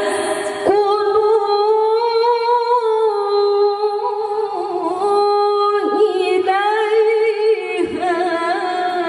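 A woman's voice reciting the Quran in the melodic tilawah style into a microphone, drawing out the phrase 'litaskunū ilayhā' in long held notes with ornamented turns. The voice breaks only briefly, about six and eight seconds in.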